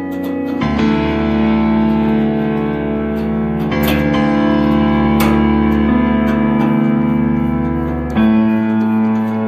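Background music: sustained guitar and keyboard chords, changing chord about every few seconds.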